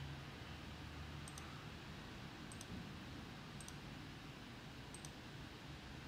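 Faint computer mouse clicks, four in all about a second apart, each a quick press-and-release pair, as points of a sketch line are placed. A low steady hum of room tone sits underneath.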